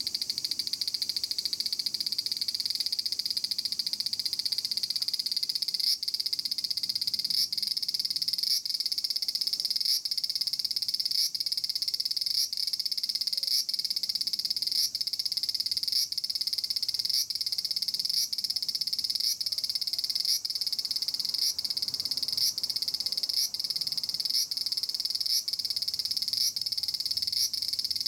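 Large brown cicada (aburazemi, Graptopsaltria nigrofuscata) singing a loud, continuous, high-pitched buzz. From about six seconds in, the buzz dips briefly at a regular beat, roughly one to two times a second.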